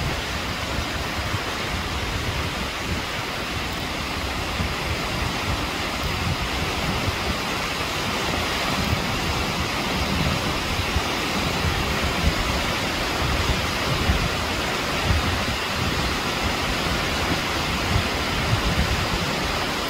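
Tall waterfall falling down a steep rock face into spray, a steady rush of falling water with an uneven low rumble beneath it.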